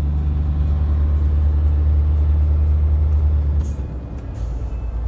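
Truck's diesel engine and road noise droning steadily inside the cab while driving. A little past halfway the engine note drops lower and the sound dips briefly before picking up again.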